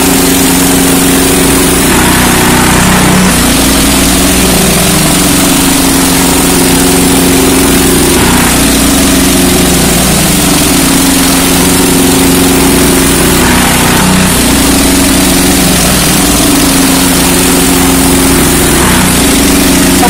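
Hud-Son Patriot portable bandsaw mill's engine running steadily under load as its band blade saws lengthwise through a knotty golden birch log.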